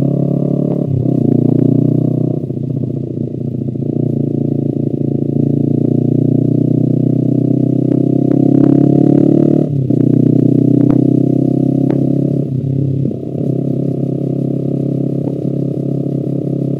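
Honda CBR250RR's parallel-twin engine running through an Akrapovic exhaust at moderate throttle, its note climbing slowly for about ten seconds. It dips briefly then and again near thirteen seconds, then runs on steadily.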